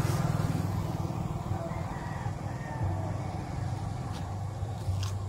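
Motorcycle engines running as they pass along the road: a low, steady putter that is loudest at the start and eases off during the first second, then carries on more quietly.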